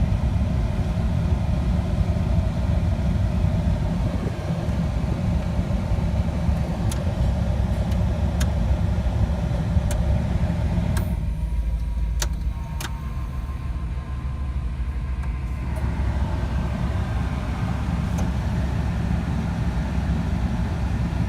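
Pickup truck engine idling steadily with a low rumble. A rushing noise above it drops away for about five seconds midway and then returns, with a few faint clicks.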